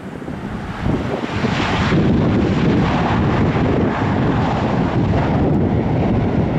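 Jet airliner's engines as it passes close by, the roar building over the first two seconds, then holding loud and steady, with wind buffeting the microphone.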